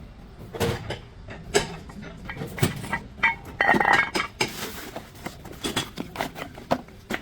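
Metal tools and brake parts being handled during front brake work: a string of separate metallic clinks and knocks, with a longer clatter about four seconds in.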